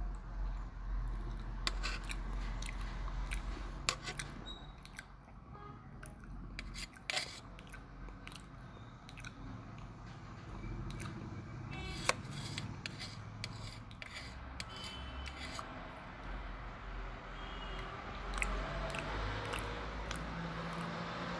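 Steel spoon scraping and clinking against a stainless steel plate of fried rice, with chewing between spoonfuls. There are a few sharp clinks, the loudest about twelve seconds in.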